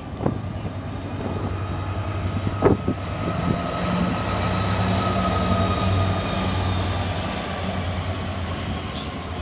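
GBRF Class 66 diesel locomotive passing, its two-stroke V12 engine running with a steady low hum and a high whine over it, loudest as it goes by in the middle and easing off after. Two sharp knocks, just after the start and again about two and a half seconds in.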